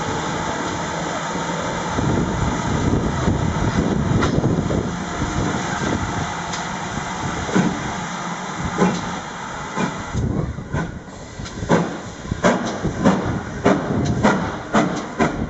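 GWR Modified Hall 4-6-0 steam locomotive No. 7903 Foremarke Hall moving off slowly, with a steady hiss of steam. From about ten seconds in its wheels knock over the rail joints and pointwork in a run of sharp clicks.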